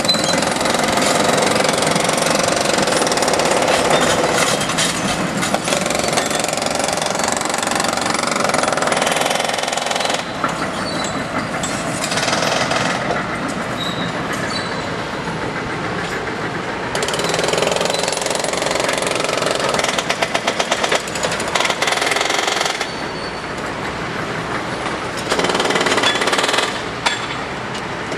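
Loud, continuous noise of track-construction machinery and power tools working on rails and ties, changing abruptly several times. About two-thirds of the way through comes a short burst of rapid hammering.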